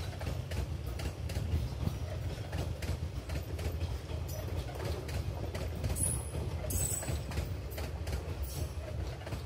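Passenger coaches of an Indian Railways express rolling past on the track: a steady low rumble with the rhythmic clickety-clack of wheels over the rail joints.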